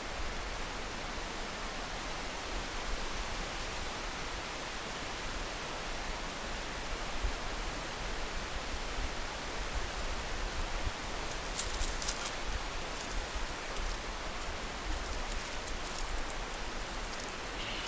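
Steady wind noise on the microphone, low and rumbling, over a small wood fire burning in a Firebox stove, with a short run of crackles about twelve seconds in.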